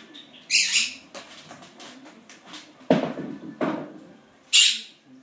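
Quaker parrot (monk parakeet) calling: two short, shrill squawks, one about half a second in and one near the end, with two lower, rougher sounds between them around the middle.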